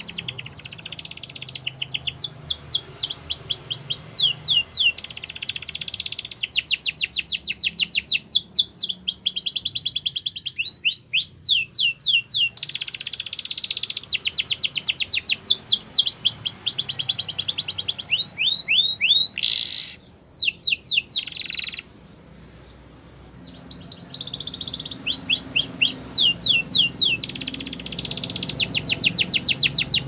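Yellow domestic canary singing: long, rapid trills of quickly repeated falling notes, one run after another, with a short break about three quarters of the way through.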